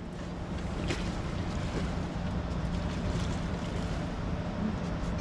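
Wind buffeting the microphone over a steady low machine hum.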